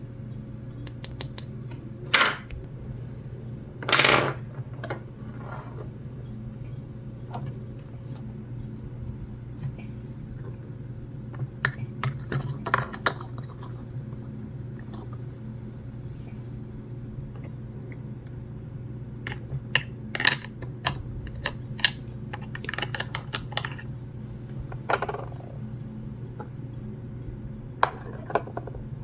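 Small plastic toy pieces being handled and set down: scattered light clicks and taps, some in quick clusters, with a couple of short scraping rubs, over a steady low hum.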